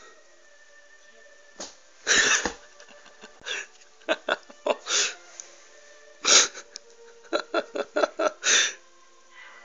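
A person giggling in fits of short, stifled, breathy bursts: a longer burst about two seconds in, scattered short ones, then a quick run of about six near the end.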